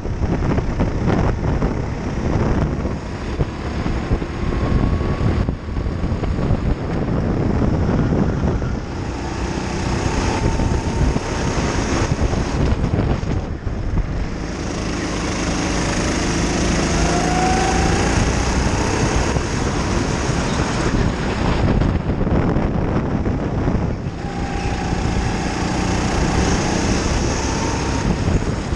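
Racing kart engine heard from on board, running hard at speed, its pitch rising and falling as the kart accelerates and lifts through the corners, with another kart's engine close ahead.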